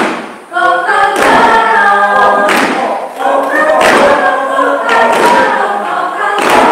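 A group of voices singing unaccompanied in chorus, several pitches held together in chords, with a heavy stamp of feet on a wooden floor about every second and a quarter.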